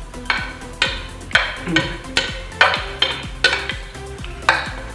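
A spoon scraping and clinking on a plate in quick strokes, about two a second, as rice is gathered up from it. Faint background music with a simple melody runs underneath.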